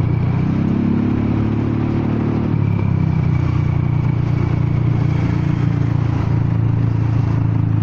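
Honda Forza 300 scooter's single-cylinder engine running loud while cruising, its exhaust pipe cracked.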